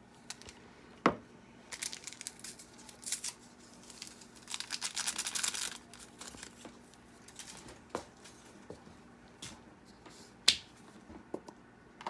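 Small handling sounds while sweetening an iced coffee: a few sharp clicks, the loudest about a second in and another near the end, and about four seconds in a second and a half of rustling crinkle from a paper Splenda sweetener packet being torn open and shaken.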